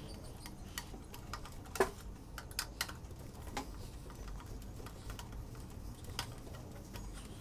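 Sparse light clicks and taps, irregularly spaced a second or so apart, from computer hardware being handled and fitted during PC assembly.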